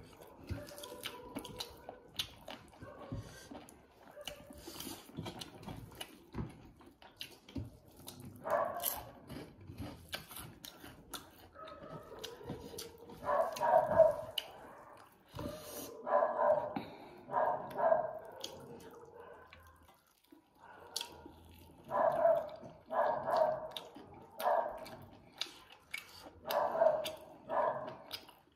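Close eating sounds, chewing, lip-smacking and small clicks of fingers working rice and curry on plates, with a dog barking in short runs of two or three barks from about a third of the way in.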